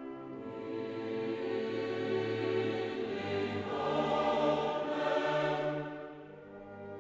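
Choral music with orchestra, singing long held chords that swell to their loudest about four seconds in and ease off near the end.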